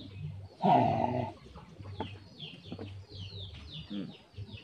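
Chickens clucking, short calls over and over, with one louder, longer animal call a little over half a second in.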